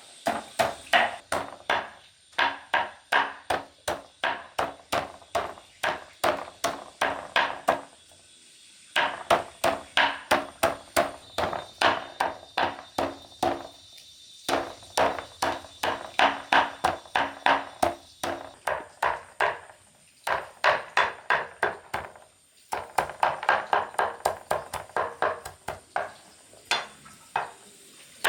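Rapid chopping on a wooden block, about three or four strikes a second, in runs broken by short pauses.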